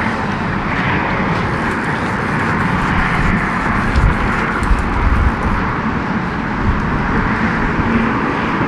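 Wind buffeting the microphone, with passing road traffic swelling and fading a few times.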